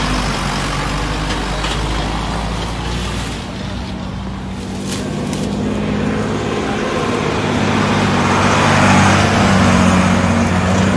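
A motor vehicle engine running steadily with a low hum, under a rushing noise that grows louder about eight seconds in.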